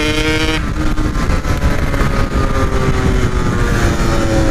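Yamaha RX-King two-stroke single-cylinder engine held at steady revs, then the throttle snaps shut about half a second in. The engine note then falls slowly as the bike coasts. Heavy wind rumble on the microphone sits under it.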